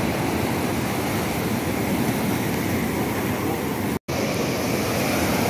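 Sea surf breaking and washing up the shallows as a steady rushing noise, broken by a momentary silent gap about four seconds in.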